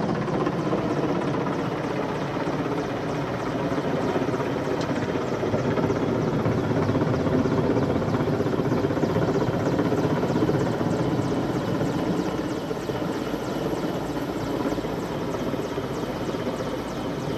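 Firefighting helicopter close by, its rotor beating in a fast, steady rhythm over the turbine's steady running.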